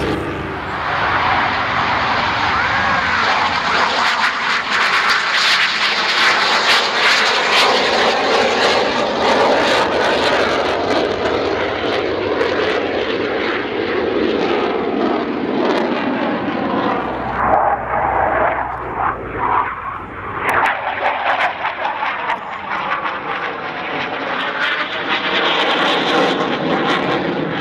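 Jet aircraft flying past, its loud engine noise rising and falling, with gliding changes in pitch as it passes; it dips briefly a little past the middle and then builds again.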